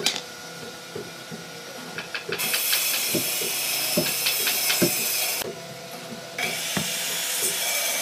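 Two long bursts of loud hiss, each about three seconds, that start and stop abruptly, over scattered knocks and clunks of a heavy hardwood slab being handled.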